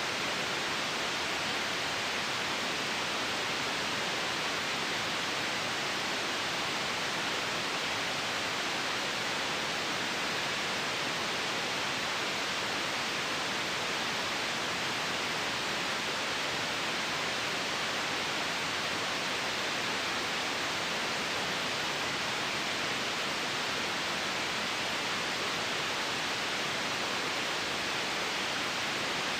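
Steady white noise: an even, unchanging hiss, brightest in the upper-middle range.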